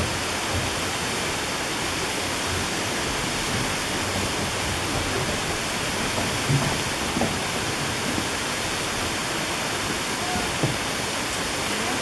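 Waterfall partly frozen into a curtain of ice, water still pouring down its open middle: a steady, even rush of falling water. A couple of brief low thumps come about six and a half and ten and a half seconds in.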